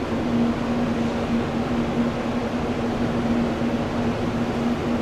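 Jet aircraft engines running steadily: an even rush with a constant low hum that holds throughout.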